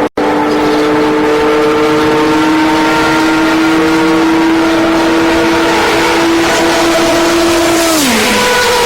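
Group C endurance racing prototype running flat out, its engine note held high and creeping slowly upward, then dropping sharply in pitch near the end, after a momentary break in the sound right at the start.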